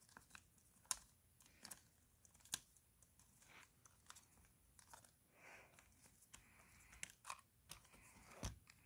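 Faint, scattered small clicks of a screwdriver turning the battery-cover screw on the back of a Lego Luigi interactive figure, with light plastic handling, against near silence.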